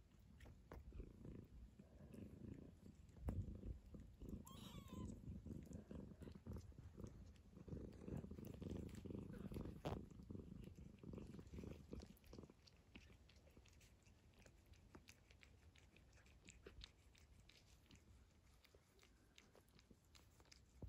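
Faint, low purring from a mother cat with her newborn kittens, fading out after about twelve seconds. About four to five seconds in, a kitten gives one short squeaky mew.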